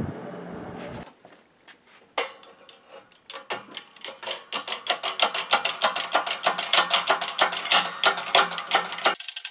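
Coal forge fire rushing for about a second. Then a hydraulic shop press squeezes a red-hot steel bar end to upset it, with a fast, even run of sharp ticks, about five or six a second, that builds up from about three seconds in.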